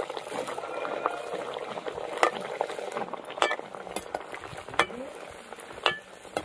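Kachuri deep-frying in hot oil in an aluminium kadai: the oil sizzles and bubbles steadily. A few sharp clicks come from a perforated metal slotted spoon knocking against the pan.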